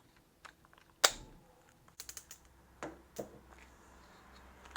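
Scattered sharp clicks and light knocks from handling a cordless drill and its large bit, one louder click about a second in and a quick cluster about two seconds in.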